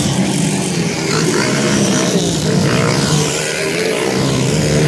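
Several dirt bike engines running hard as a pack of motocross bikes races past up a hill, their pitches overlapping and wavering as the riders work the throttle.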